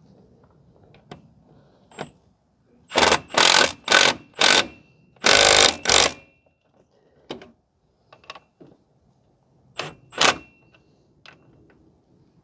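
A power wrench runs in short bursts to snug up the mounting bolts of a new wheel hub assembly. There are four quick bursts, then a longer one of about a second, and two more near the end, with light clicks of tool handling between them.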